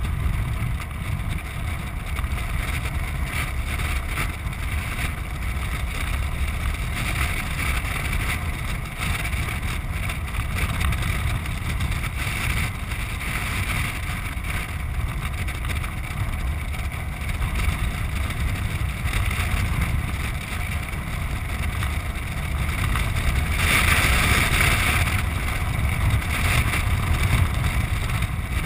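Steady rush and low rumble of wind on the microphone of a GoPro riding on a moving land sailer, swelling louder for a couple of seconds near the end.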